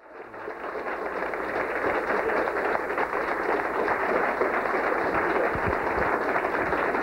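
Audience applauding, fading in over the first second and then steady.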